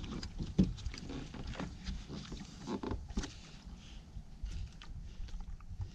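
Largemouth-type bass being landed on a fibreglass bass boat: irregular knocks and thumps as the fish flops on the deck and is grabbed by the lip, over a low wind rumble on the microphone.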